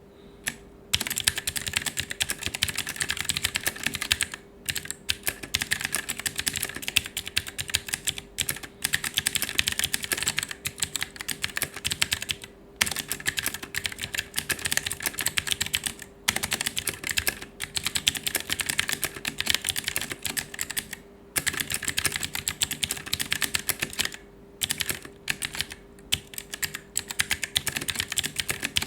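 Fast, continuous typing on an Aula F3287 mechanical keyboard with clicky blue switches, a dense run of crisp key clicks broken by a few short pauses.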